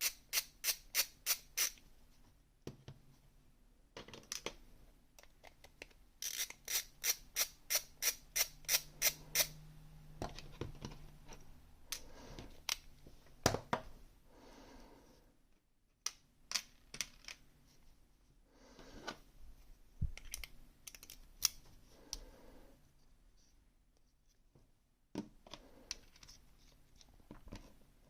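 ASSA Twin 6000 lock cylinder being taken apart to remove the core: a run of sharp metal clicks, about three a second, at the start and another about a quarter of the way in, then scattered small clicks and taps of metal parts being handled.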